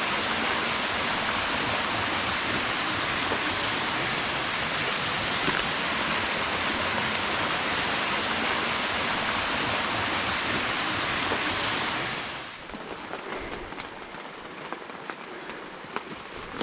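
Waterfall rushing steadily as a loud even hiss of falling water. About twelve seconds in it drops abruptly to a much quieter background with faint scattered ticks.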